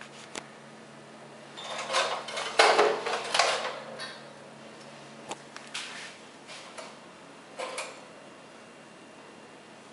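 Scraping and rattling around a wire animal cage holding a raccoon dog, loudest between about two and four seconds in, then a few sharp clicks, over a low steady hum.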